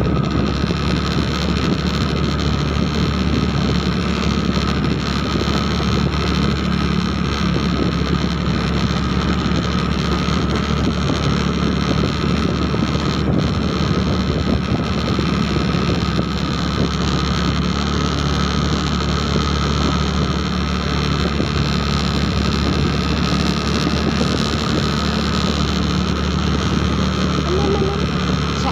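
Steady engine drone of a moving motorbike, with road and wind noise rushing over the microphone.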